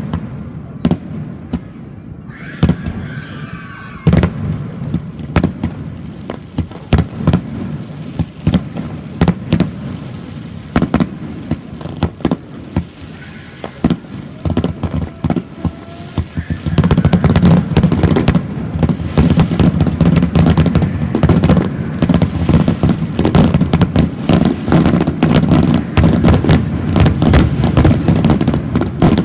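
Aerial fireworks bursting: a string of sharp booms and cracks spaced a second or so apart, then about seventeen seconds in a dense, louder barrage of bursts fired in rapid succession.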